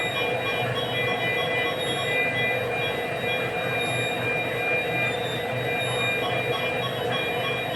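Steady machine hum of hospital equipment, with a few thin high whining tones held throughout.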